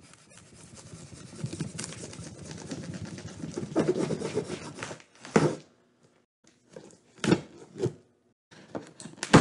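Cardboard box and packing material rubbing and scraping as a cookware box is unpacked, a continuous rustle growing louder over about five seconds, then a few separate sharp knocks.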